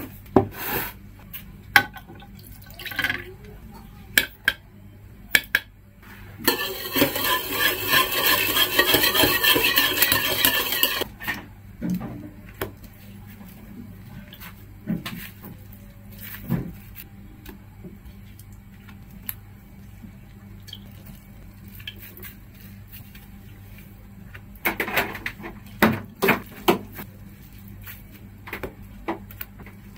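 Kitchen handling sounds: a spoon and bowls clinking and knocking on a table, then a few seconds of liquid pouring, milk into a bowl. Later, soft drips and clinks as slices of bread are dipped in the milk.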